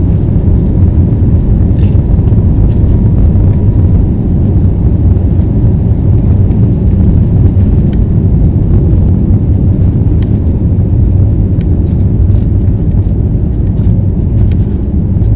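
Inside the cabin of an Airbus A321neo during the takeoff roll and lift-off: the engines at takeoff thrust and the airflow give a loud, steady low rumble, with a few faint clicks.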